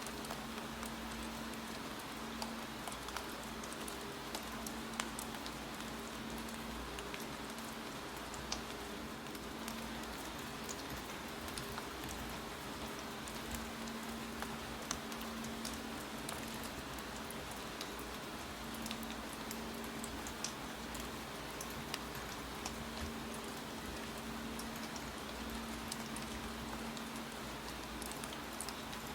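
Steady rain with irregular sharp clicks of keyboard typing scattered over it, and a faint low hum that comes and goes.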